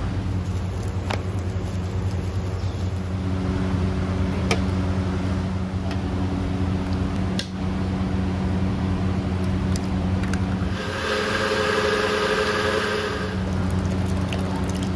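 Steady machine hum from kitchen equipment, with a few light clicks. For about two seconds near the end, a louder rushing noise rises over it.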